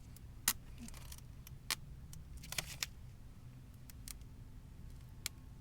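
Vinyl decal transfer tape being peeled slowly off a boat's side: a few faint, sharp clicks and ticks at irregular intervals over a low steady hum.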